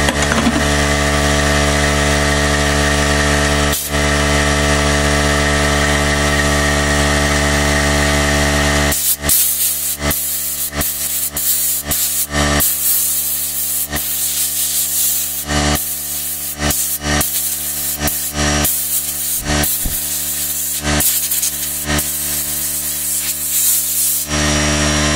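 Compressed-air blow gun blasting air into a small potentiometer to blow out the alcohol after cleaning it. About nine seconds in come a string of hissing blasts, mostly short with a few held for a second or two, until near the end. A steady machine hum runs underneath throughout.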